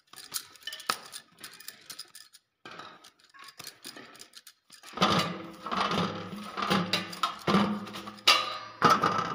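Hands kneading and pressing a ball of dough in a stainless-steel plate, with bangles clinking: light scattered clicks at first, then from about five seconds in a run of heavier pushes roughly once a second over a steady low hum.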